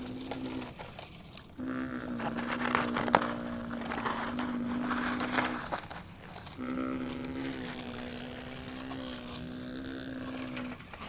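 Small electric motors and gearboxes of a radio-controlled construction model whining at a steady pitch. They run in stretches of about four seconds, stopping and starting again. During the first stretch there is a scraping rattle and one sharp click.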